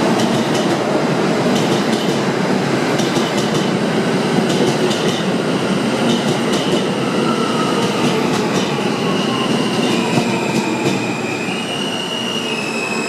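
R160B subway train pulling into a station and braking, with a steady rumble and rhythmic clicks of the wheels over rail joints. A high-pitched whine comes in over the last few seconds as it slows toward a stop.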